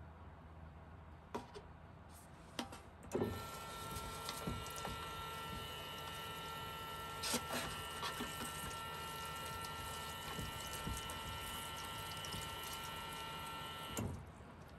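Small electric water pump for a camper-van kitchen sink running steadily with water flowing from the tap. It starts after a few clicks about three seconds in and cuts off suddenly near the end.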